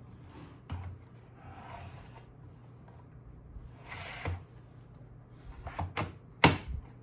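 HPE 800 W Flex Slot hot-plug power supply being pushed into its bay in a rack server. There is a handling knock, then a scraping slide about four seconds in, then a quick run of sharp clicks and knocks near the end, the loudest as the unit seats and latches.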